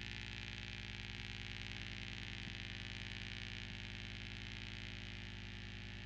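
Steady, even electronic drone: a low buzzing hum with a hiss of static over it, unchanging throughout.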